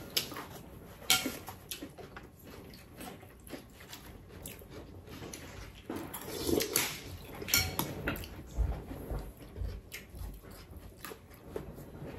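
Two people eating mushroom porridge: slurping from spoons and chewing, with spoons clinking against ceramic bowls. There are many short clicks and smacks, with a louder slurp about six and a half seconds in.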